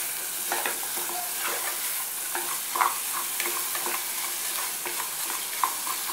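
Sliced shallots sizzling as they fry in oil in an aluminium pressure cooker, stirred with a wooden spoon that scrapes and knocks against the pot at irregular moments.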